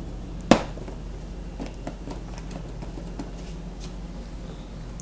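A single sharp tap about half a second in, followed by faint scattered small ticks over a steady low hum.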